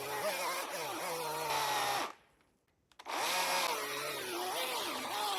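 Husqvarna 350i battery-powered electric chainsaw running, its motor whine sagging and rising as the chain takes load in the wood. The motor stops about two seconds in and starts again a second later.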